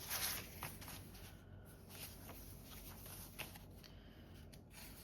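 Paper and card rustling and sliding as journal pages and a paper pocket are handled, with a brief rustle at the start and a few light taps and rustles after it.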